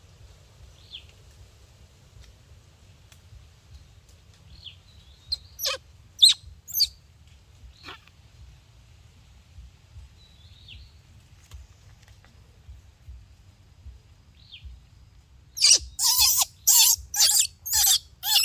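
Short, faint, high chirping calls every second or two, a few sharp louder calls partway through, then near the end a rapid run of about seven loud calls.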